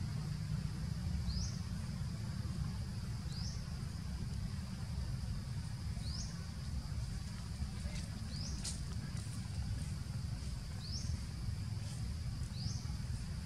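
Outdoor ambience: a steady high insect drone, with short rising chirps repeating every couple of seconds, over a steady low rumble.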